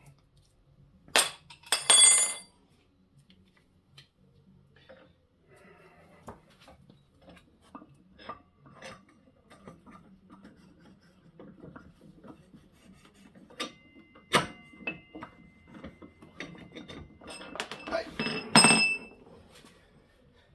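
Metal scooter front-wheel parts, the axle and its spacer, being handled and fitted: loud ringing clinks about a second and two seconds in, small knocks and scraping in between, and another ringing clank near the end.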